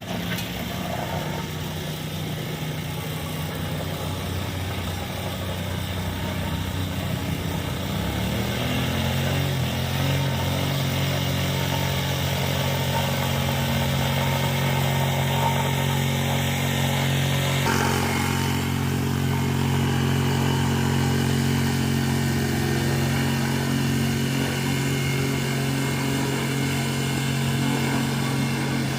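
An engine running steadily, its note stepping up and growing a little louder about eight seconds in.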